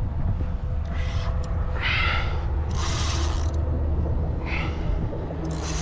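Spinning reel working against a hooked red drum, its mechanism ratcheting in about five short spurts roughly a second apart, over steady wind rumble on the microphone.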